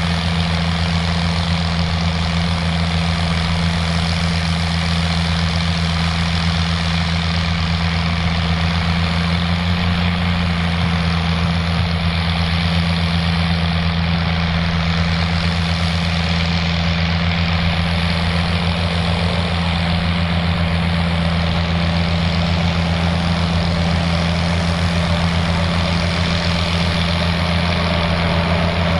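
Fiat 110-90DT tractor's diesel engine running steadily at a constant speed, with no change in pitch or loudness.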